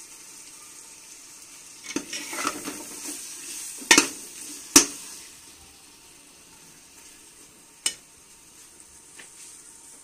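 Minced beef frying in ghee in a metal cooker pot, sizzling steadily at the stage where the ghee has separated from the mince. A slotted metal spoon stirs and scrapes it, clinking sharply against the pot a few times, loudest about four and five seconds in.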